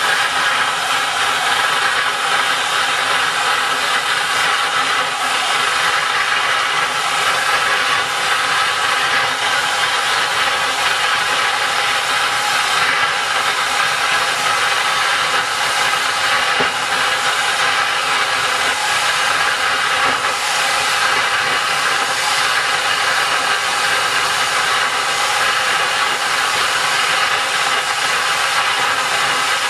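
Homemade jet engine built from a car turbocharger, with a cocktail-shaker combustion chamber, running steadily at part power: a loud, even rushing hiss with faint steady tones beneath it.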